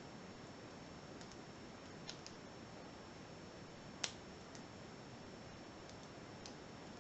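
Lock pick and tension wrench working the serrated pins of a Sesamee 5-pin padlock: a few faint light clicks, with one sharper click about four seconds in.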